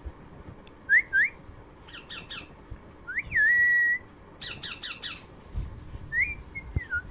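Pet parrot whistling: two short rising whistles about a second in, a longer held whistle, and wavering whistles near the end, with two bursts of rapid harsh squawking chatter in between.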